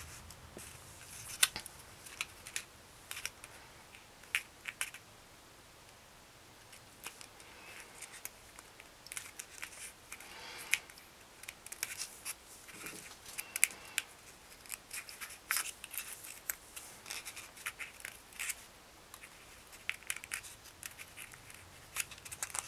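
Faint paper rustling and crinkling with small irregular clicks as fingers curl and roll the petals of a folded paper rose.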